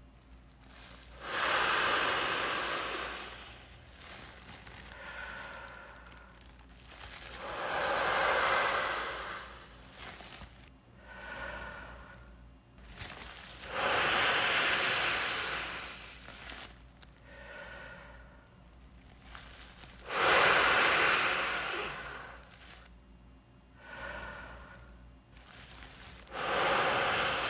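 A man breathing in and then blowing hard into a large plastic bag to inflate it with his lungs: five long, loud exhalations about six seconds apart, each preceded by a shorter, quieter in-breath.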